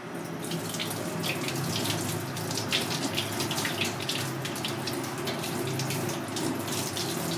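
Kitchen tap running onto hands rinsing pieces of turban shell meat, water splashing irregularly into a stainless steel sink. The water sound starts abruptly at the beginning.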